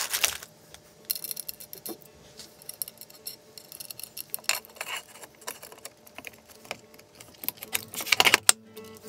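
Small metal clinks and clicks as machine screws and hardware are handled and fitted into acetal plates on a workbench. There is a clatter at the start and a louder run of knocks about eight seconds in, as lengths of aluminium extrusion are set against the plate.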